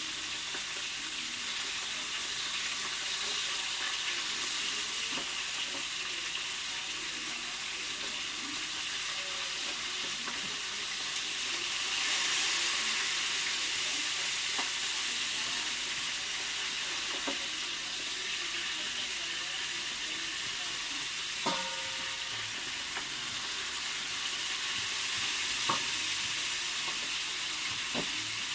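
Fish frying in hot oil in a pan, a steady sizzle that swells a little partway through. A few light clicks of a utensil on the pan, one of them a short ringing metal clink.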